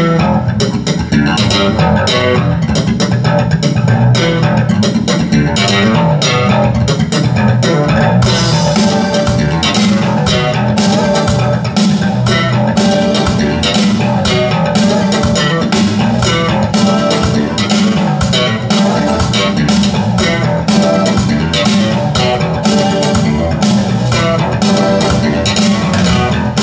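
Rock-style band music with bass guitar, guitar and drums played back over Cabasse spherical active loudspeakers, with a strong bass line. About eight seconds in, crisp drum and cymbal hits join in a steady beat.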